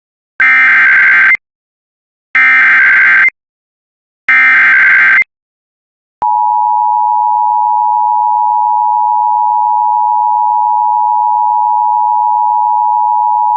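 Emergency Alert System warning opening: three screeching digital SAME header data bursts, each about a second long, then the steady two-tone EAS attention signal sounding continuously, announcing a severe thunderstorm warning.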